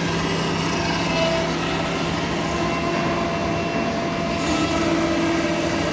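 Four-axis CNC router cutting a roughing pass: a steady run of spindle and cutter noise with a few held tones that shift slightly.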